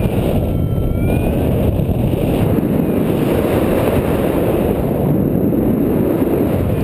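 Airstream buffeting the microphone of a harness-mounted camera during paraglider flight: a loud, steady, rushing rumble.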